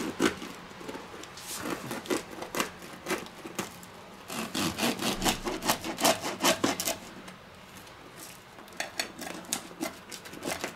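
A kitchen knife sawing through the crisp, browned crust of a thick, domed stuffed pizza in short rasping strokes that come in bursts, with a quieter pause about two-thirds of the way through.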